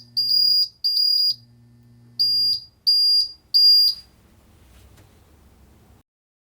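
Smoke alarm sounding a high-pitched beep in groups of three: a short blip and two beeps, a pause, then three more beeps. A low hum runs under the first group and stops about two and a half seconds in.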